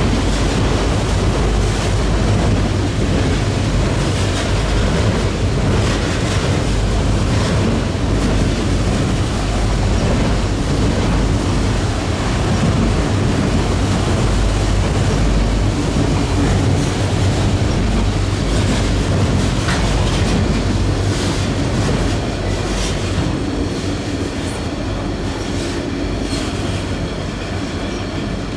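Freight train of autorack cars rolling past, a steady rumble with the clatter of steel wheels over the rail joints, growing quieter in the last few seconds.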